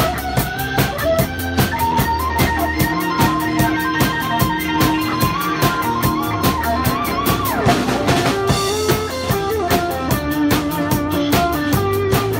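Instrumental band music. A Pearl clear acrylic drum kit keeps a steady beat with fast, even hi-hat under a held melody line. About two-thirds of the way through, a sweeping glide in pitch cuts across the melody.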